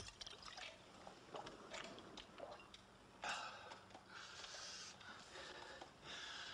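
A person breathing in a quiet room: faint small clicks and rustles, then from about three seconds in several long, noisy breaths one after another.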